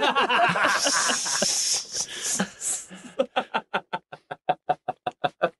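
Men laughing hard: breathy, wheezing laughter, then a rapid run of short staccato laughs, about seven a second, that stops suddenly near the end.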